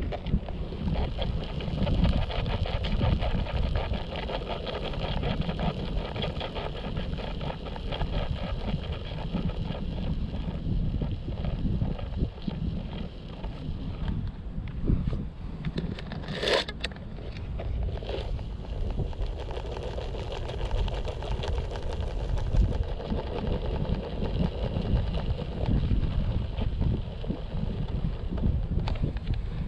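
Toy helicopter running with a steady whine over a low rumble, with one sharp noise about halfway through.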